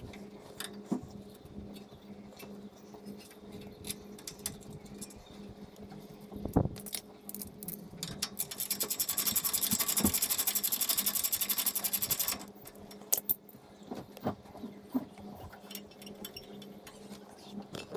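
A hand ratchet clicking rapidly for about four seconds in the middle as a bolt is run in, with scattered metal clinks of tools and parts before and after, over a faint steady hum.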